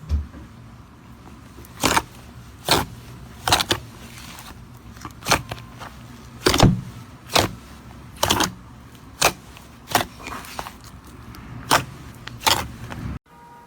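Slime being pressed and handled, giving a series of sharp sticky pops and clicks, roughly one a second, over a steady low hum. The sound cuts off abruptly near the end.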